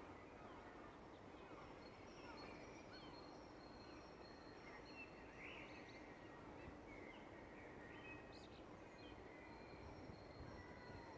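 Faint birdsong from many birds at once: drawn-out high whistles and short chirps and gliding notes over a steady low background hiss.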